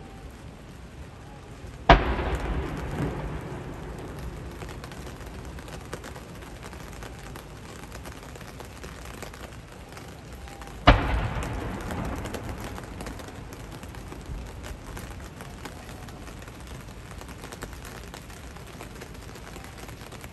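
Ceremonial artillery gun salute: two loud blank-round bangs about nine seconds apart, each followed by a long rolling echo that dies away over several seconds.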